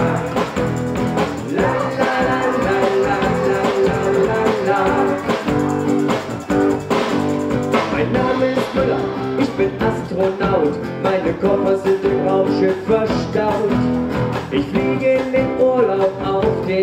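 Live acoustic band playing an upbeat pop-rock song: strummed acoustic guitar, acoustic bass guitar and a drum kit keeping a steady beat, with singing in places.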